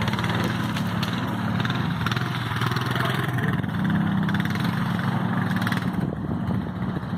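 ATV engine running at fairly steady revs, easing off briefly about three seconds in and picking up again a second later.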